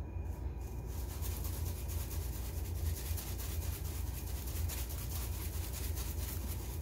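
Plastic shaker jar of Lawry's Salt Free 17 seasoning shaken over a bowl: a rapid, steady rattle of dried seasoning granules, starting about a second in, over a steady low hum.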